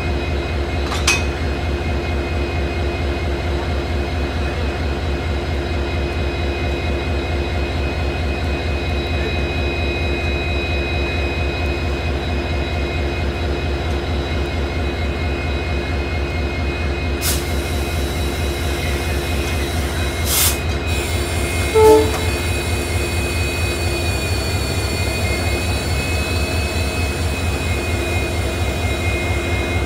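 WDP-4D diesel-electric locomotive's two-stroke EMD V16 engine idling with a steady deep throb and a steady whine over it. A few short sharp knocks come through, and a brief pitched toot about 22 seconds in is the loudest moment.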